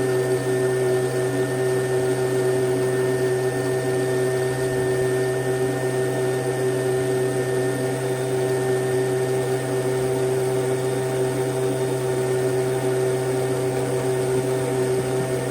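Blower motor of a new Royal dry washer running steadily at a constant speed, a fixed hum that does not change.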